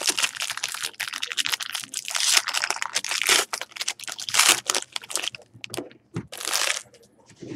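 Foil wrapper of a trading-card pack crinkling and crackling as hands open and crumple it, dying away near the end.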